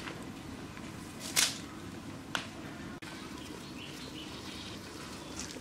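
Open wood fire burning under a pot of heating water: a steady low rush with two sharp crackling pops about a second apart, the first much the louder.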